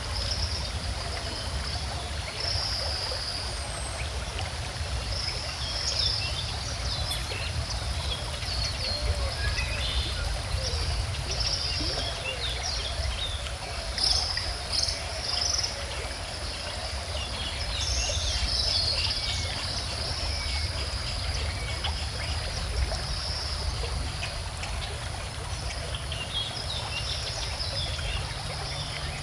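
A stream flowing steadily, with birds chirping and singing over it throughout.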